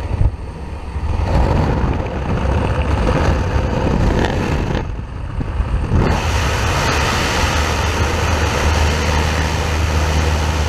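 Light aircraft's propeller engine droning steadily, under a rush of wind on the microphone. The wind grows harsher about halfway through, with the jump door open and the skydivers leaning out.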